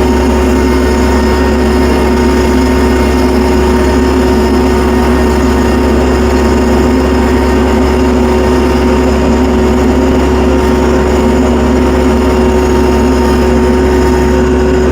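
Tractor engine running steadily at a constant speed, with an unchanging hum.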